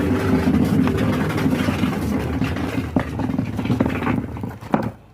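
An engine running steadily, then dying away about four seconds in, followed by a couple of sharp knocks.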